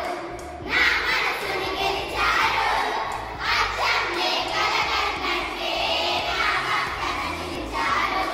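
A large group of girls' voices raised together in chorus, in phrases about a second long with short breaks between them.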